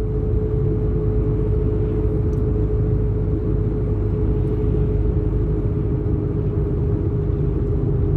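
Road noise of a car driving, heard from inside the cabin: a steady low rumble of engine and tyres, with a constant whine running through it.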